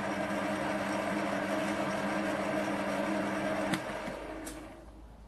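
A small electric machine runs steadily with a hum and whir, then is switched off with a click about two-thirds of the way through and dies away over a second or so, with another faint click.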